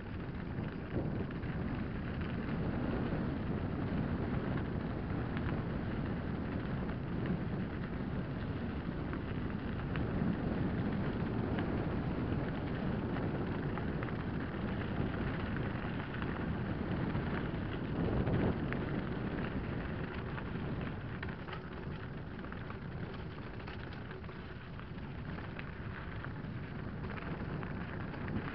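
Mountain bike descending fast on a loose gravel track: a steady rush of wind on the microphone, with tyres crunching and crackling over the stones.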